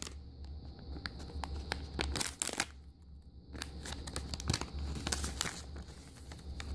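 A crinkly foil blind bag being handled and torn open by hand: irregular crinkling and tearing, louder in a few short bursts.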